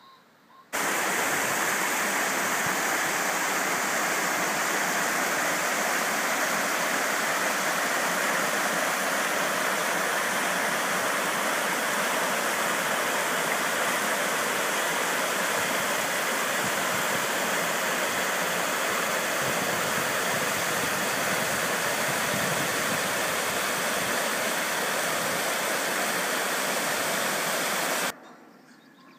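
Mountain stream rushing white down a channel in smooth rock slabs: a loud, steady rush of water that starts suddenly about a second in and cuts off suddenly near the end.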